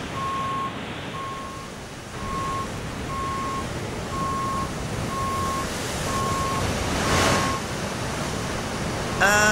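Electronic warning beeps of the kind a reversing vehicle gives, one about every three-quarters of a second, over a steady wash of surf. A wave breaks about seven seconds in.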